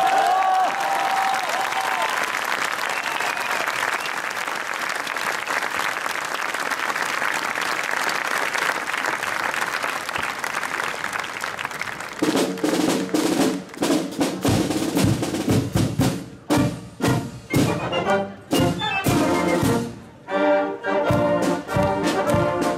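Marching brass band: a held note breaks off at the start, followed by about twelve seconds of a steady wash of noise with no clear notes. About twelve seconds in, the band plays again, brass with regular drum beats.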